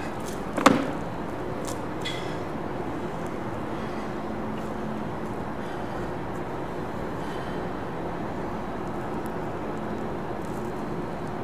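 A ballet slipper stepping on a plywood platform coated in wet drywall mud, giving one sharp knock a little under a second in, over a steady background hum.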